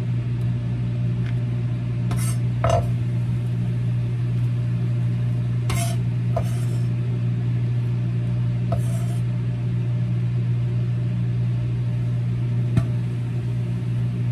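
Steady low hum of a running microwave oven, cooking a baked potato on a timer. Over it come a few sparse knocks of a chef's knife on a wooden cutting board as Spam is diced and pushed onto a paper plate.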